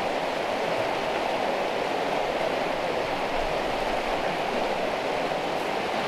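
Fast-flowing moorland river rushing over rocks and boulders: a steady, even rush of white water.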